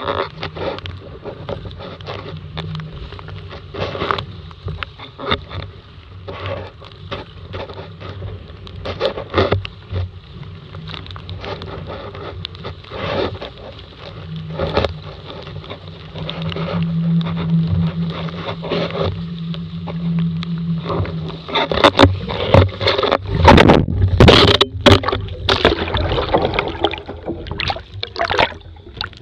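Water rushing and slapping against a Laser dinghy's hull as it sails hard in strong wind and chop, with frequent sharp slaps of spray and waves. From about 22 seconds in it turns to loud, heavy splashing as the boat heels over into a wipeout.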